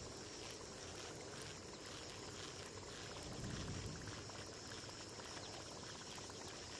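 Baitcasting reel being cranked during a lure retrieve: faint, rapid ticking at a few clicks a second.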